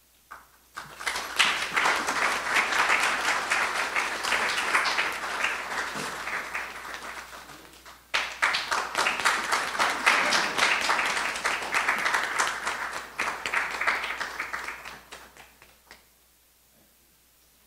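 Audience applauding in two rounds: clapping starts about a second in and slowly dies down, then breaks out again suddenly about eight seconds in and fades out near the end.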